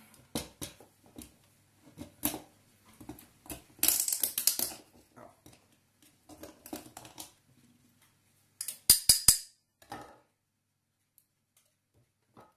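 A steel knife blade scraping and prying at the mesh strainer in a brass water-meter inlet, in short clicks and scrapes. A harsher scraping run comes about four seconds in, and three sharp clicks come about nine seconds in.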